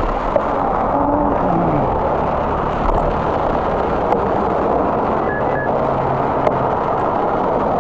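Steady rushing noise of a bicycle ride beside a road: wind and rolling noise at the handlebar-mounted camera mixed with the hum of cars driving past on the adjacent street.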